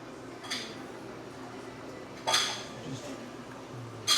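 Tableware clinking: utensils striking dishes and the hot pot, three sharp clinks that ring briefly. One comes about half a second in, the loudest a little past two seconds, and one at the very end, over a steady low background hum.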